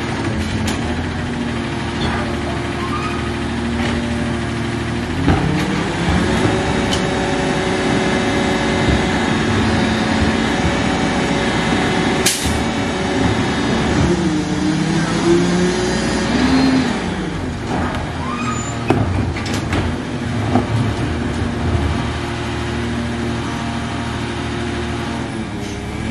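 Garbage truck engine idling, then raised in speed about five seconds in as the packer hydraulics run. The pitch wavers in the middle and drops back to idle around eighteen seconds, with a sharp click and a few clanks along the way.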